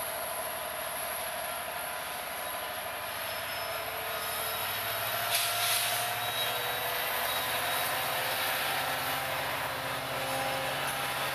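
BNSF EMD diesel locomotives, the train's mid-train distributed power units, running as they roll past, with engine hum and rail noise under wind on the microphone. A short burst of hiss comes about five seconds in.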